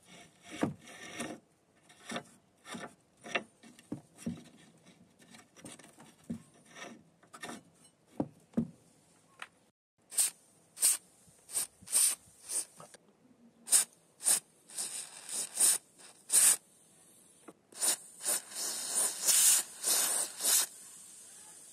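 Rusted metal parts handled, with short irregular scrapes and rubs; from about halfway, an aerosol lubricant can sprays through its straw onto rusted bolts and a hinge in about a dozen short hissing bursts, some longer near the end.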